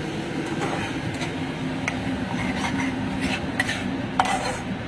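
Metal slotted spatula scraping and tapping against a nonstick frying pan while stirring and frying a thick tomato-and-spice masala, many quick strokes with the sharpest near the end, over a steady low hum.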